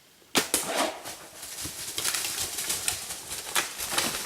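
A sharp shot about a third of a second in, then a black bear crashing away through the brush, with snapping and rustling.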